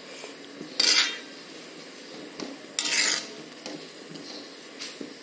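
Steel ladle stirring a watery curry in a metal kadhai, scraping and clinking against the pan. There are two louder scrapes, about a second in and about three seconds in, with a few light taps between them.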